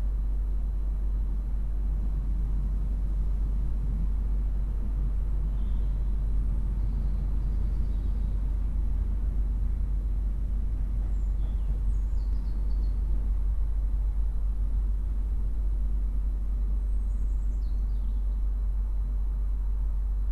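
Outdoor ambience: a steady low rumble, with faint high bird chirps a few times.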